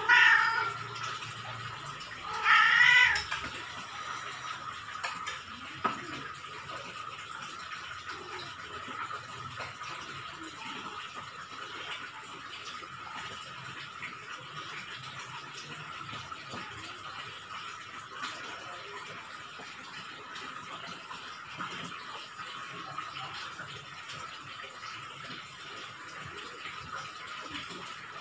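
A cat meowing twice, about two and a half seconds apart, the second call longer. A faint steady high hum continues underneath.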